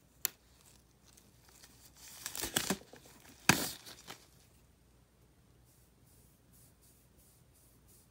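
Brief rustling, crinkling handling noise in two bursts, the louder one starting sharply about three and a half seconds in and fading within a second, followed by faint light ticks.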